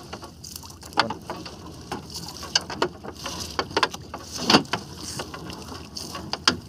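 Irregular knocks and clatter on a small fishing boat while the fishing net is hauled aboard, over a steady hiss; the loudest knock comes about four and a half seconds in.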